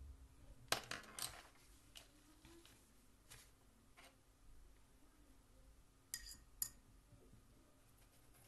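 Light clinks of watercolour painting gear being handled on the desk: a quick cluster of taps about a second in, a few faint taps after, and two short ringing clinks about six seconds in.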